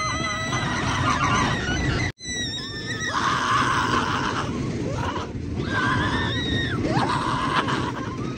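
Roller coaster riders screaming: long held, wavering screams over the steady rumble and wind noise of the moving ride, with a sudden brief cut-out about two seconds in.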